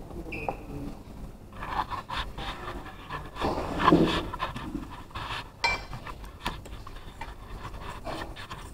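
Spoon and fork scraping and clicking against china plates during a meal, with rubbing noise close to the microphone. A short voice sound about four seconds in is the loudest moment.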